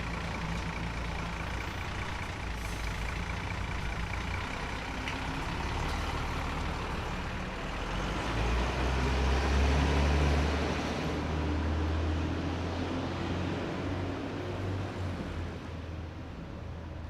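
Old heavy vehicle's engine running, growing louder about eight seconds in as it pulls away, then fading steadily as the vehicle drives off.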